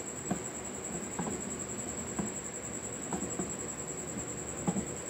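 Steady high-pitched pulsing trill, insect-like, with a few soft knocks scattered through it.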